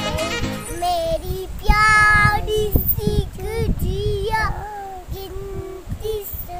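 A child singing.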